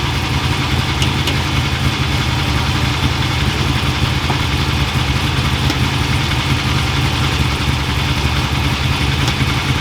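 Off-road race vehicle's engine idling steadily and loudly, with an even low rumble that does not rev or change.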